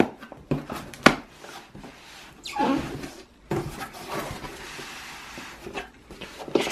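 A cardboard shipping box opened by hand: a few sharp taps and knocks as the flaps are pulled open, then a sheet of cardboard sliding and rubbing against the box for a couple of seconds.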